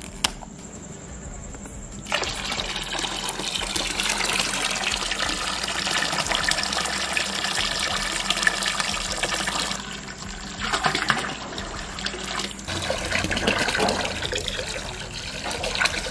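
Apple cider vinegar being poured in a heavy stream into a large cooking vessel, starting about two seconds in, with short breaks about ten and twelve and a half seconds in.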